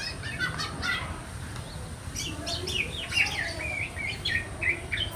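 Black-naped oriole chick calling: a few short calls, then a quick run of short chirps, some sliding up and some down, from about two seconds in.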